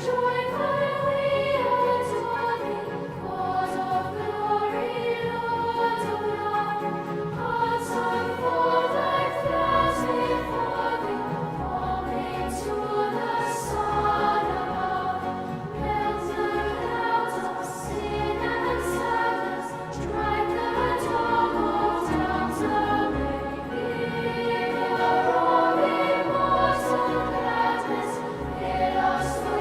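Choir singing a hymn with instrumental accompaniment; a deep bass line comes in about ten seconds in.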